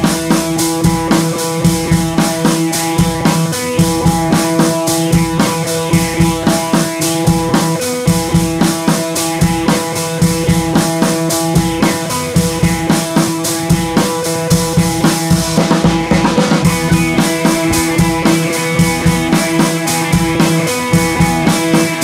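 Background music: an upbeat track with a drum kit keeping a steady beat under sustained notes.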